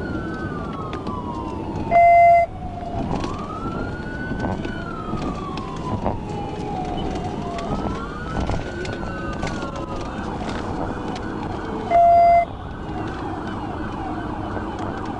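Police car siren on a slow wail, rising and falling about every four seconds, with a second wail overlapping it slightly out of step, over road noise. A loud half-second electronic beep cuts in twice, about two seconds in and again near the end.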